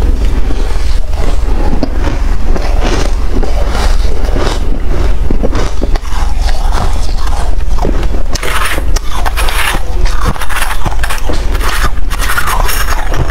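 Freezer frost crunching as it is chewed, with a metal spoon scraping and digging into the frost block in the later seconds, all over a steady low hum.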